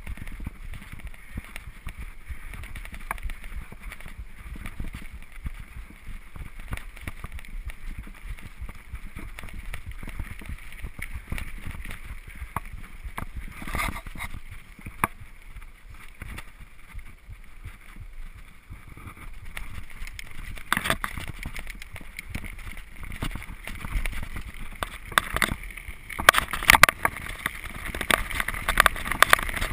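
A full-suspension mountain bike, a Gary Fisher HiFi Pro Carbon, ridden fast on a dirt singletrack: tyres rumbling over the ground and wind buffeting the GoPro's microphone. Sharp rattling knocks from the bike come through, growing louder and more frequent in the last few seconds.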